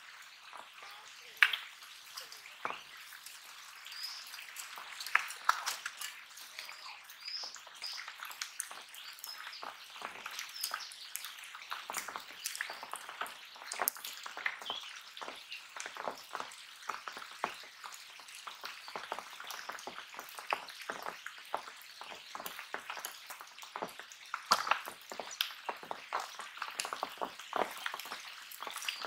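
Irregular crackling and rustling clicks of dry grass and straw as a freshly caught fish is landed and handled on the bank, with small birds chirping now and then.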